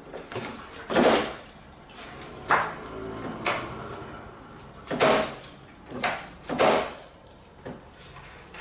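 Motorcycle centre stand clunking and scraping metal on metal as it is worked: about five separate knocks a second or so apart, the loudest near the start and around the middle.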